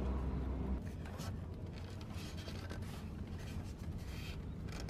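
Hands rubbing and rustling a cloth and wrap against a water-heater pipe, heard as a series of short scratchy rubbing sounds. There is a low rumble during the first second.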